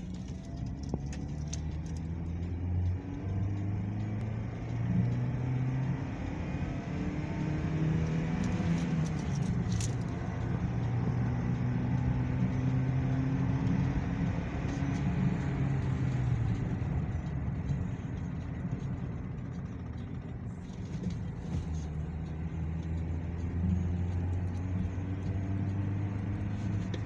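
Toyota Corolla GLi 1.3's four-cylinder engine heard from inside the cabin, accelerating hard through the first three gears of a manual gearbox, its revs climbing in each gear and dropping back at each shift.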